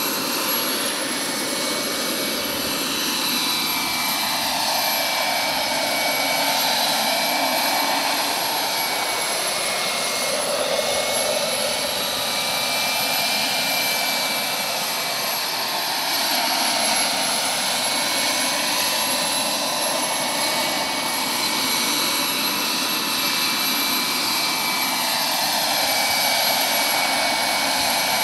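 Turbine-powered Vario XLC model helicopter in flight: the steady high whine of its gas turbine over the rush of the rotor blades, the sound slowly swelling and wavering in tone as the helicopter moves about in the hover.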